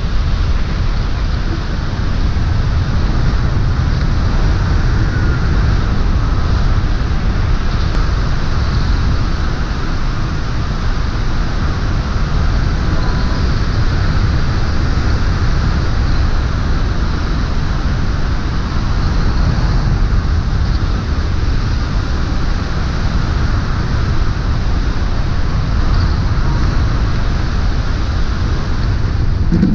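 Loud, steady rush of wind across a hang glider's camera microphone in flight, unbroken and heaviest in the low end.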